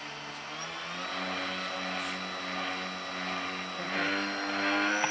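Twin propeller motors of a homemade foam RC cargo plane running steadily, then revving up about four seconds in, getting louder and higher as it is throttled up for a hand launch.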